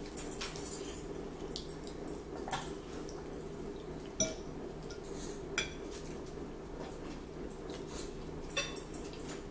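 Forks clinking and scraping against plates while people eat, a few sharp clicks spread over a steady low hum.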